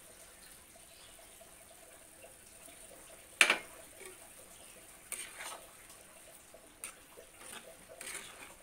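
Utensil clatter against a cooking pan as prawns are added to rice: one sharp clink about a third of the way in, then several lighter clinks and scrapes.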